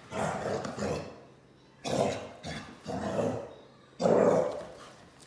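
A dog giving four loud, gruff vocal bursts, about a second apart.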